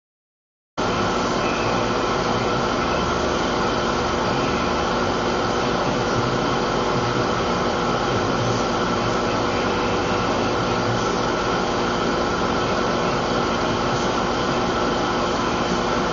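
Steady, even hum and hiss of background noise, starting abruptly about a second in and holding unchanged, with no voices.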